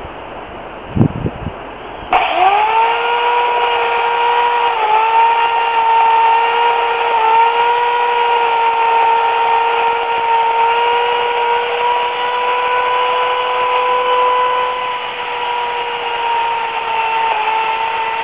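Remington Limb N Trim RM1415A 8-amp electric chainsaw, started about two seconds in with a quick rise in pitch, then running at a steady high whine that dips slightly a couple of times. A couple of short knocks come just before it starts.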